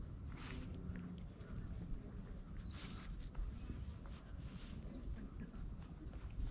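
A cat's rough tongue rasping in short strokes against a finger close to the microphone. A bird gives short down-slurred chirps about four times behind it, over a low rumble.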